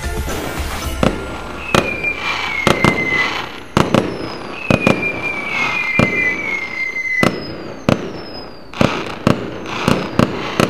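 Fireworks going off: irregular sharp bangs about once or twice a second, with a few long whistles that fall slowly in pitch.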